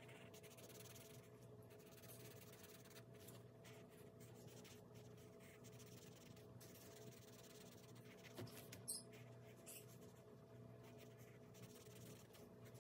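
Pen writing on a printed paper card: faint, irregular scratching strokes over a low steady hum, with a couple of slightly louder taps about eight and a half seconds in.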